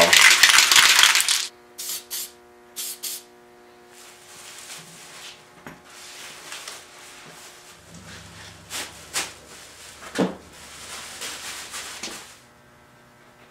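Aerosol spray can hissing in one long burst, then four short puffs about two to three seconds in. After that, plastic sheeting rustles and crinkles as it is pulled off an upholstered chair seat.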